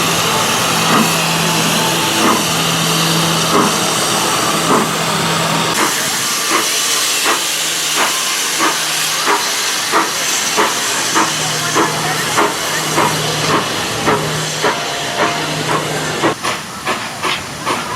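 Walt Disney World Railroad steam locomotive hissing steam, with a steady run of rhythmic beats that quicken toward the end as the locomotive gets moving.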